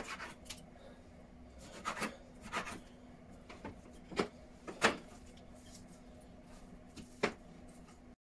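Kitchen knife cutting cubed raw beef on a wooden chopping board: about ten irregular knocks and scrapes of the blade against the board, the loudest a little under five seconds in.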